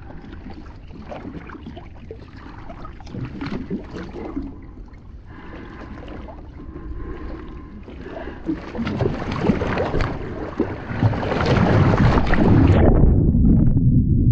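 Water splashing and sloshing around a paddle board, with knocks and bumps on the board, growing louder about nine seconds in. About thirteen seconds in the sound turns to a loud, muffled underwater rumble and bubbling as the rider falls in.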